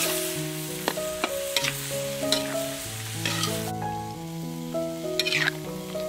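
Chicken gizzard and ginger stir-fry sizzling in a wok, with a utensil clinking and scraping against the metal. The sizzle drops away a little past halfway, leaving a few more clinks. Gentle background music with a melody plays throughout.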